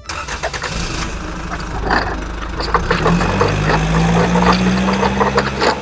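A motor vehicle engine starts and then runs steadily, its pitch rising a little two to three seconds in and holding, with scattered clicks throughout.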